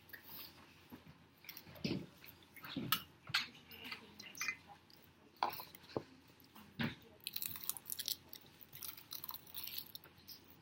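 Close-up chewing and crunching of crisp seaweed snacks, in irregular bites with short crackly clicks. The louder crunches fall about 2, 3, 5.5 and 7 seconds in.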